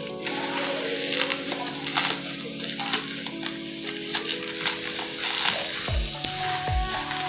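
Plastic bubble wrap crinkling and crackling as hands handle and unwrap a parcel. Background music with held notes plays underneath, with two deep falling bass notes near the end.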